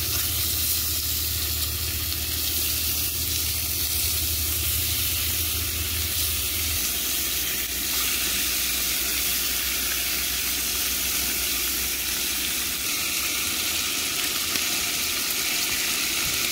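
Bacon strips sizzling and frying in a hot cast-iron skillet on a propane camp stove, a steady spattering hiss, occasionally stirred with chopsticks. A low hum sits under it and stops about seven seconds in.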